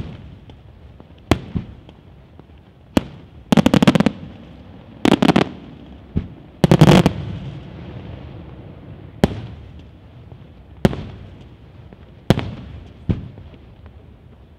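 Aerial firework shells bursting, a sharp single bang every second or two, each with a trailing echo. Three quick strings of rapid crackling reports come in the first half.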